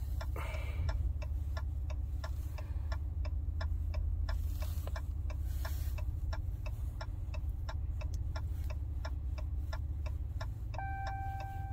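Turn-signal indicator clicking steadily in the cab of a 2022 Ram truck, a few ticks each second, over the truck's low hum while it creeps forward. Near the end a single steady chime tone sounds, the Active ParkSense alert that a parking space has been found.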